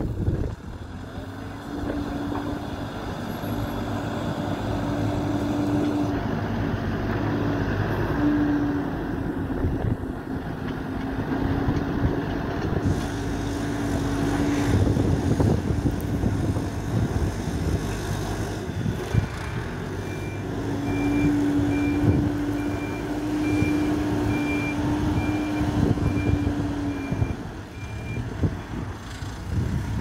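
Hidromek 102B backhoe loader's diesel engine working under load while it moves dirt, its note rising and falling with the throttle. From about two-thirds in, its reversing alarm beeps at an even pace as it backs up, stopping shortly before the end.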